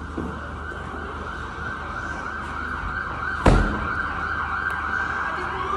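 Emergency vehicle siren wailing, holding a high note and then starting a new rising sweep near the end. A single sharp thump about halfway through is the loudest sound.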